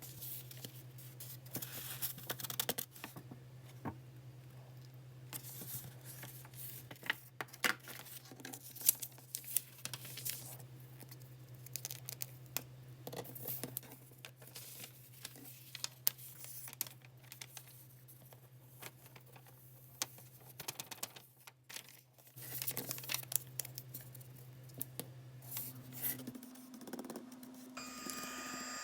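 Close-up crafting handling sounds: paper rustling and crinkling with irregular light taps and clicks, over a steady low hum. A steady hiss starts right at the end.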